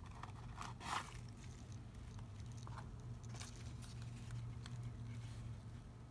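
Faint handling of a card-stock paper box: soft rustles and small taps, with a louder scratchy rustle about a second in, over a steady low hum.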